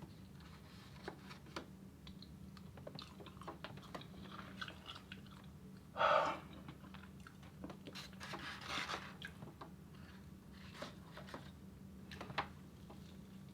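A person chewing and crunching food close to the microphone, with scattered soft clicks and crunches and one louder short sound about six seconds in.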